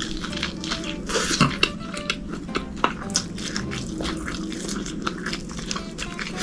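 Eating sounds: cutlery clicking and tapping against a dish, with chewing, over soft background music.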